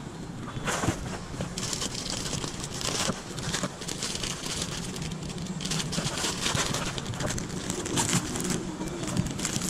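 Plastic snack and noodle packets crinkling as they are handled and carried, in irregular bursts of rustling, over a steady low hum.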